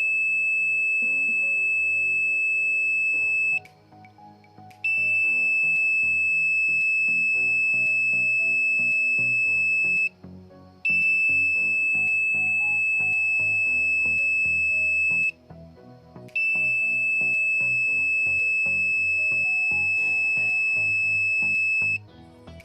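Electronic buzzer of a homemade PIR motion-sensor security alarm sounding a steady high-pitched tone in long blasts of about five seconds. It cuts out for about a second three times before starting again.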